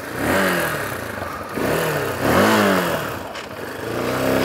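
Motorcycle engine running and revving up and down several times in short rises and falls.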